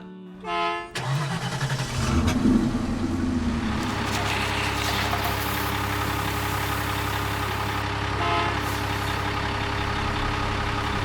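Wheel loader's engine running steadily, setting in about a second in after a brief pitched tone. Another short tone sounds about eight seconds in.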